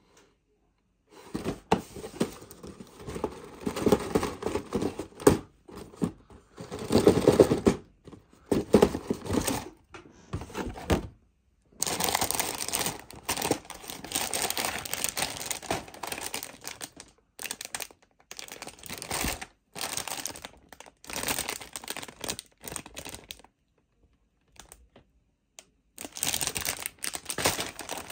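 Plastic model-kit runners in clear plastic bags, and the cardboard kit box, being handled: crinkling and rustling in irregular bursts with brief pauses.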